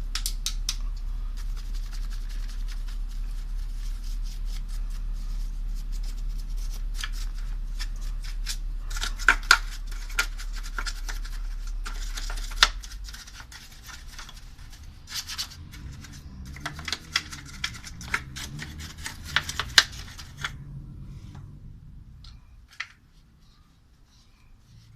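Scraping, rubbing and clicking of hands and a small tool working on electric-fan parts, clearing out lint and hair, with busier bursts of sharp clicks in the middle and near the end before it dies away. A steady low hum runs underneath and stops about halfway through.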